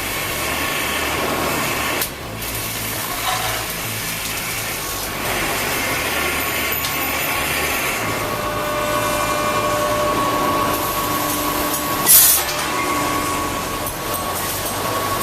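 Steady metal-shop machinery noise: a continuous hiss and rumble with steady whining tones that come in about halfway through, and a brief sharp hiss about 12 seconds in.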